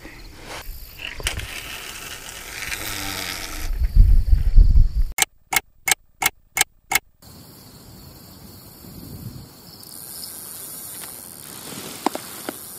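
Clock-ticking sound effect: six sharp ticks, about three a second, over dead silence. Before it, handling noise ending in a loud low rumble on the microphone; after it, a faint steady outdoor background returns.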